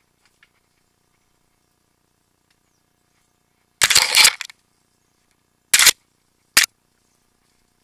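Mountain-bike-mounted camera jolting on a rough, rocky trail: three loud bursts of clattering knocks, a longer one about four seconds in and two short, sharp ones about a second apart near the end.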